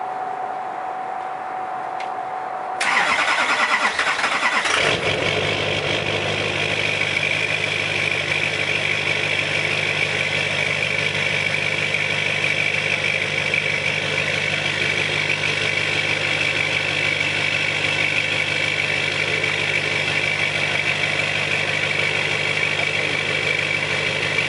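A Duramax 6.6-litre V8 turbodiesel cold start heard at its 5-inch MBRP exhaust tip: a steady tone for the first few seconds, then the starter cranks for about two seconds before the engine catches and settles into a steady idle with a constant high whine over it.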